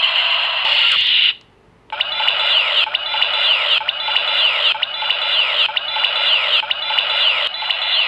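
Electronic standby sound effect from a DX Rouze Absorber transformation toy: a steady electronic tone cuts off about a second in, and after a brief silence a short chime with falling sweeps loops about once every 0.8 s.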